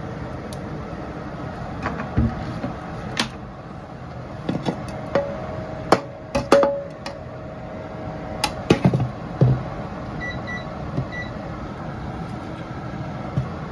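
An induction cooktop's control panel gives three short, high beeps about ten seconds in as its heat setting is pressed. Before that come scattered clicks and knocks as the frying pan is handled on the cooktop, over steady background noise.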